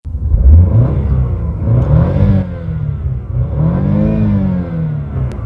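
BMW car engine revved in park, rising and falling in pitch twice and climbing to about 6,000 rpm.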